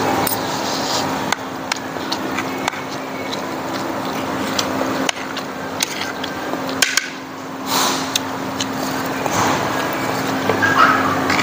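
Spoon and fork clinking and scraping on a plate, in scattered sharp clicks over a steady background hum.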